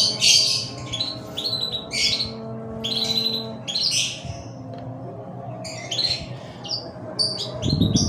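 Birds chirping and squawking, short high calls coming in quick clusters again and again, with a brief low thump near the end.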